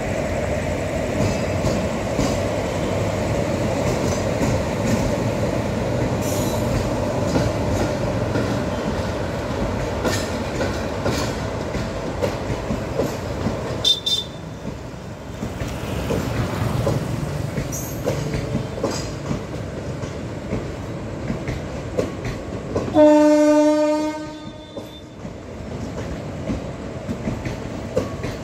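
Indian Railways passenger train running: a steady rumble with the clickety-clack of wheels on rail joints. Near the end a locomotive horn sounds once, for about a second; it is the loudest sound.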